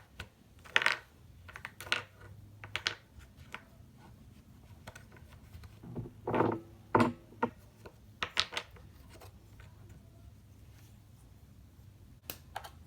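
Wooden puzzle pieces knocking and clacking against a wooden peg board as they are picked up and set into place, in irregular sharp knocks a second or two apart.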